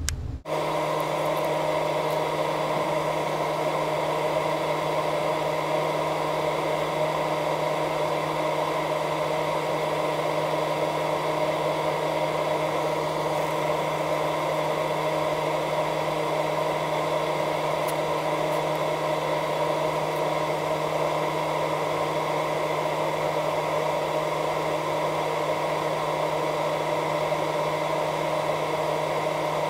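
A steady machine hum holding several fixed tones, unchanging in pitch and level throughout, with a few faint ticks.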